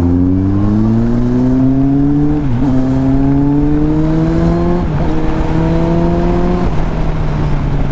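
Kawasaki Z800's inline-four engine pulling up through the gears: its note climbs steadily, dips briefly at two upshifts about two and a half and five seconds in, then drops and holds steady about a second before the end. Wind rush on the microphone underneath.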